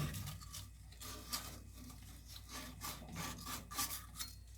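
Sandpaper rubbing back and forth around the end of a water pipe, cleaning it up before a SharkBite push-fit fitting goes on, in quick repeated strokes about three a second.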